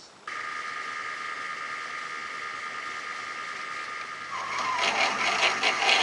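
Small metal lathe switched on, running with a steady whine. About four seconds in, a drill bit fed from the tailstock starts cutting into the spinning part, adding a louder, rough, uneven cutting noise.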